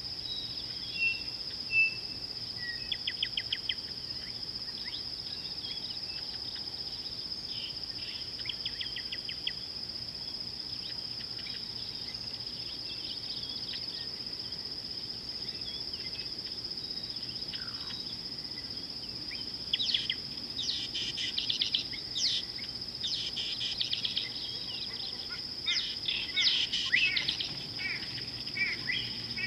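A steady high insect drone, with short rapid trills a few seconds in and again about eight seconds in, and then birds chirping many times over the last ten seconds.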